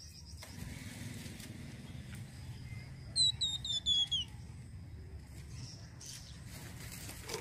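Flamboyan songbird giving one quick run of about six short, downward-slurred whistled notes, each slightly lower than the last, lasting just over a second, about three seconds in. A low steady rumble sits underneath.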